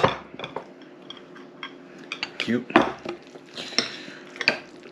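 Cutlery clinking and knocking against dishes as food is served: a string of sharp, irregular clinks, loudest right at the start and again about three seconds in, over a faint steady hum.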